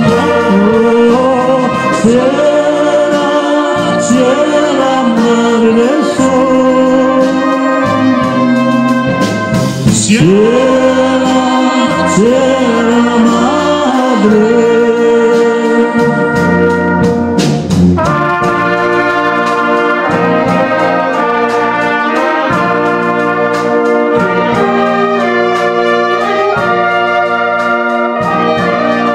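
Bohemian-style brass band playing an instrumental passage between sung verses: trumpets and flugelhorns carrying the melody in harmony over trombones and tuba, with a couple of sharp percussion strokes along the way.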